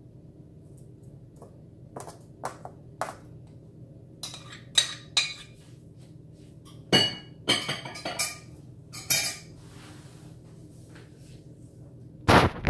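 Metal spoon clinking and scraping against a small ceramic dish in an irregular run of clinks as butter is spooned onto baklava pastry, with a louder knock near the end, over a faint steady hum.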